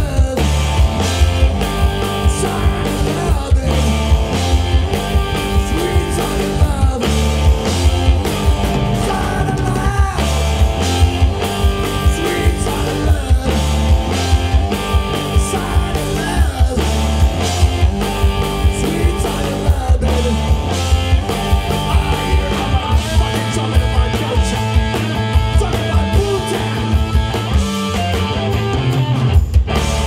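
Live rock band playing: electric guitars and a drum kit keep a steady beat, with a man singing lead.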